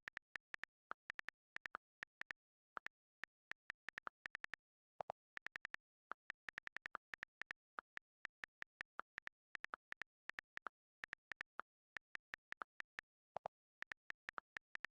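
Rapid, irregular clicks of keys being typed, several a second with short pauses between bursts. Twice, about five seconds in and near the end, one key gives a lower, fuller click.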